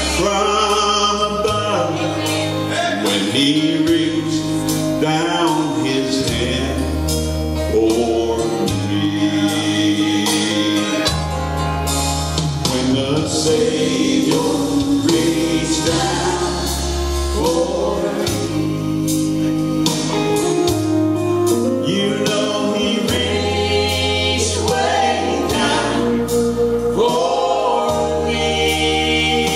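Gospel vocal group singing live: a man's voice leads, with women's voices in harmony, over instrumental accompaniment with steady held bass notes.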